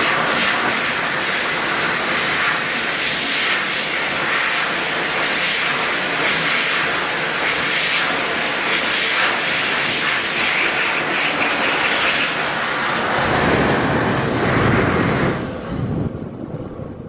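Airfury TSL.89 hand dryer (a modified Hokwang HK-JA05) running at full blast, a loud, steady rush of blown air with motor whine. About 13 seconds in its sound turns deeper, and it shuts off and winds down near the end.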